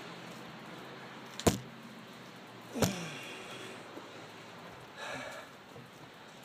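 Knife tip being worked into fresh pine to bore a hole: two sharp knocks about a second and a half apart, then a short scrape about five seconds in.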